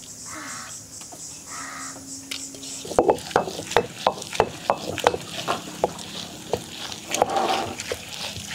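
Hand-turned stone wet grinder (grinding stone) crushing soaked urad dal. From about three seconds in, the rolling stone pestle gives irregular sharp clicks and crunches as the grains crack against the stone bowl. Before that, two short crow caws.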